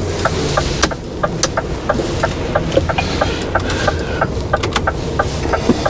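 Hazard-light indicator ticking quickly and evenly inside an HGV cab, about three ticks a second, over the steady low running of the truck's diesel engine.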